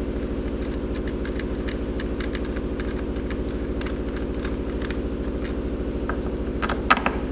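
Steady low mechanical hum of a machine running in the background, with scattered light metallic clicks as a wrench works the nuts on a brass bulkhead bolt; a few sharper clicks near the end.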